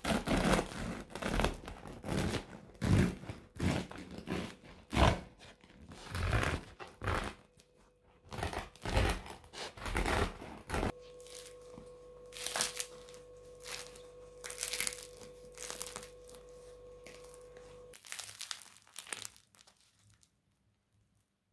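Serrated bread knife sawing through the crisp crust of a crusty homemade loaf, a crunchy rasp at each stroke, about two strokes a second. After about eleven seconds the sawing stops and only a few softer crackles follow as the bread is broken open.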